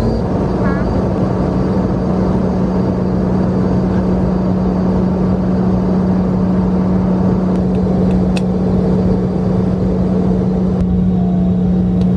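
Jet airliner cabin noise: a steady engine drone with a constant low hum, heard from inside the cabin.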